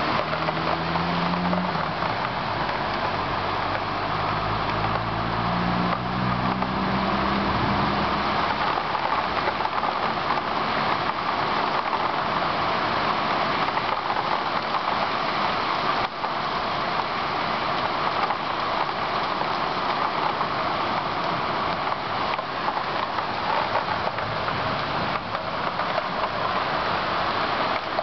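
Steady heavy rain falling on trees and ground. Through the first eight seconds or so a motor vehicle's engine is heard below the rain, its pitch shifting before it fades out.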